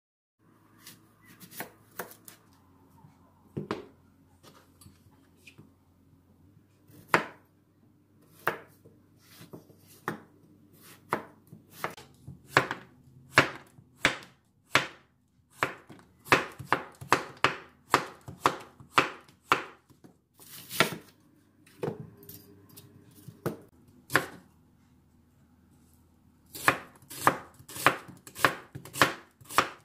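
Kitchen knife chopping Korean zucchini and then an onion on a wooden cutting board: uneven sharp taps of the blade striking the board, with a short pause about three-quarters of the way through.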